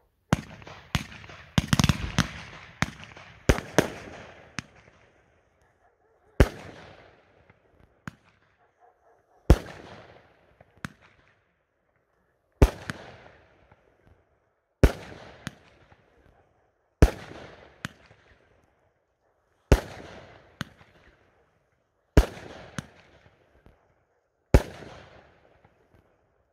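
Argento Saphir category F2 firework battery firing: a fast string of bangs in the first few seconds, then single shots roughly every two to three seconds, each with a fainter crack close behind.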